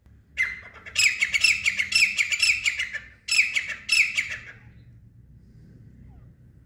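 Caged grey francolin (teetar) hen calling: a loud run of harsh, rapidly repeated notes lasting about three seconds, a short break, then a second, shorter run.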